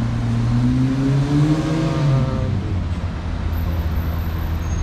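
Road traffic on a city street: a vehicle's engine accelerates, its pitch rising steadily for about two seconds before fading out, over a steady low rumble of passing traffic.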